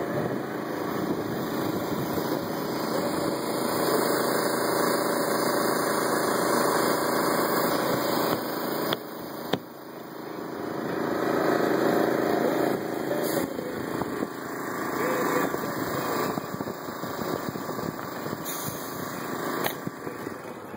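A small engine or motor running steadily, with a few sharp knocks partway through.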